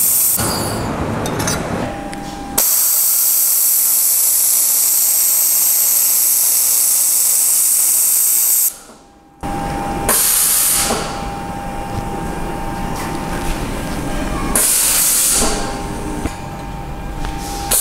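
Handheld 1000 W fiber laser welder with wire feed welding stainless steel sheet under argon shielding gas. It gives a loud, even hiss that starts abruptly a few seconds in and cuts off suddenly about six seconds later. A shorter hiss follows later.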